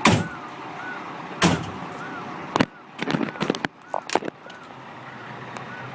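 Two heavy slams about a second and a half apart, like fire engine cab doors shutting, followed by a run of sharp clicks and knocks. Under them are a steady low rumble and a faint short chirp that rises and falls, repeating nearly twice a second.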